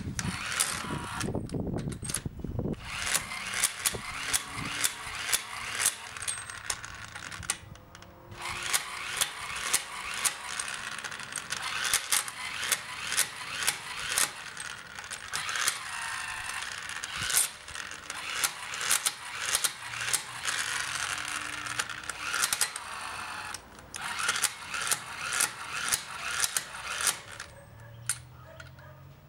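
12-volt electric impact wrench hammering wheel nuts tight, a long series of sharp metallic impacts about one to two a second in runs, with short pauses about a quarter of the way in and again near three quarters through, as it moves from nut to nut.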